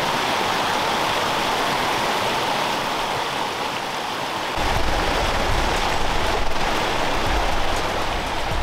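Fast mountain stream rushing over rocks: a steady, even rush of water. A low rumble joins it about halfway through.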